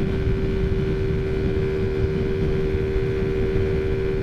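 Taotao Zummer scooter's four-stroke engine running at a steady, high, constant pitch while cruising at about 45 mph, short of full throttle. It is really loud because of a pod filter on the carburetor. Wind buffets the microphone underneath.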